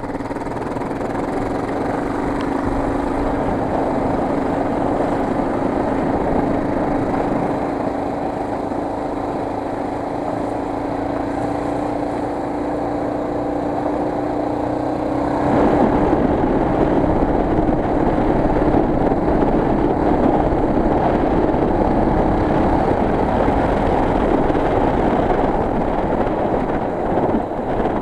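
Enduro motorcycle engine running steadily under way, with wind noise over the onboard microphone. About halfway through it pulls harder and gets louder.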